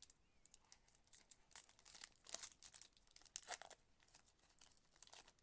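Trading-card pack wrapper being torn open and crinkled: a string of faint, short crackles and rips.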